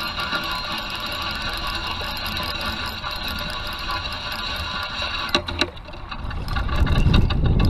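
Spinning fishing reel being cranked steadily as the line is retrieved, a continuous gear whine. The cranking stops about five seconds in with a few clicks, and wind rumbles on the microphone near the end.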